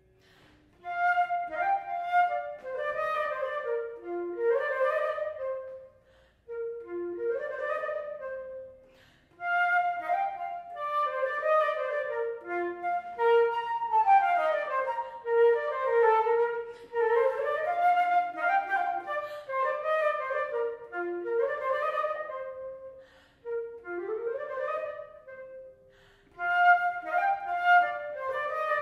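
Unaccompanied silver concert flute playing a classical solo piece in quick runs of notes, the phrases broken by short pauses for breath, with a longer pause a few seconds before the end.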